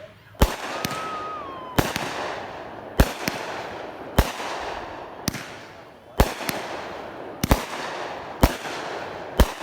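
Miracle Fireworks Lucky Stars, a 200-gram, 8-shot consumer firework cake, firing. Eight loud shots come about a second apart, each trailed by a hiss, with a few smaller cracks between them and a brief whistling tone early in the volley.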